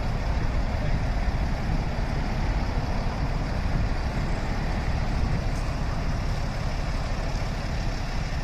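Tow truck's engine idling steadily, a constant low rumble.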